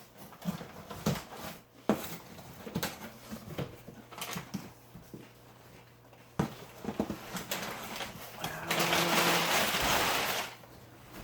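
Cardboard box and its packaging being opened and handled: scattered knocks and rustles, then about two seconds of loud tearing near the end.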